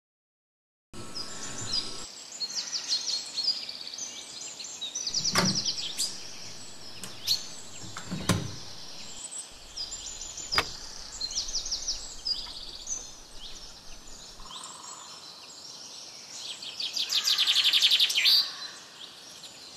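Birds chirping and twittering in many short high calls, with a few sharp clicks or knocks around the middle. A louder, rapid trill comes near the end.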